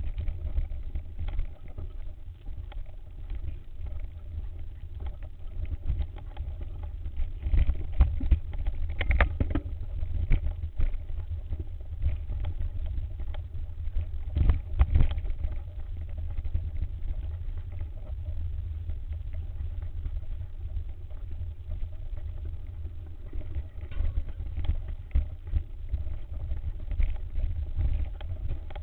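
Mountain bike rolling over rough singletrack, heard from a camera on the bike: a constant low rumble of vibration and wind, with frequent rattles and knocks as the wheels hit roots and stones. A faint steady hum runs underneath.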